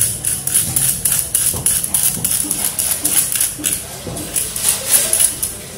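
Knife blade scraping the scales off a flathead fish on a wooden chopping block: quick, repeated rasping strokes, about three or four a second.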